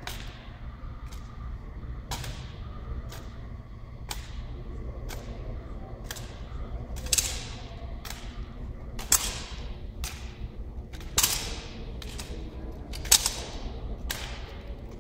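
Rifle drill team working in silence: sharp slaps and knocks of hands and rifles about once a second, the loudest every two seconds in the second half, each with an echo off the large hall.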